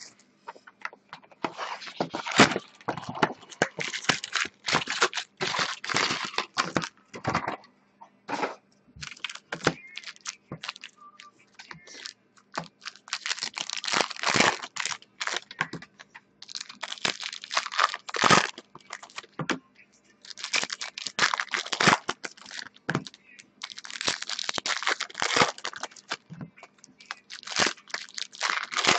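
Foil trading card pack wrappers being torn open and crumpled by hand. The crackling comes in repeated clusters of a second or two, with short gaps between, as one pack after another is ripped open and the cards are pulled out.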